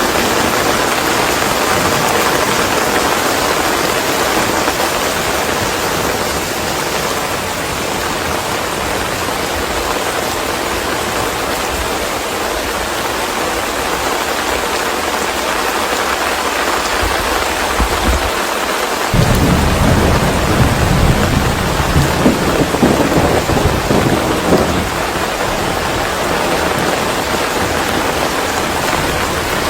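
Steady rain, with a roll of thunder that comes in suddenly about two-thirds of the way through and rumbles low for several seconds.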